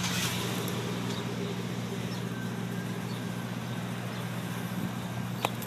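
Steady low mechanical hum over a background rush, with one short click about five and a half seconds in.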